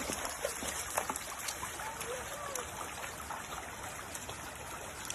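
Shallow stream running over stones, with a few sharp splashes in the first second or so as a dachshund runs through the water.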